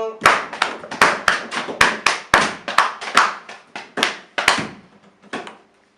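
Hand-played percussion: a quick, uneven run of sharp strikes, several a second, tailing off just before the end.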